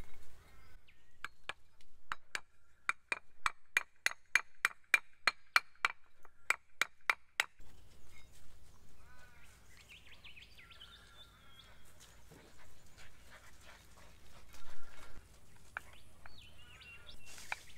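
Hammer tapping a 6203 ball bearing into its metal housing: a quick run of about twenty sharp metallic taps, three to four a second, each ringing briefly, stopping once the bearing is seated about seven seconds in.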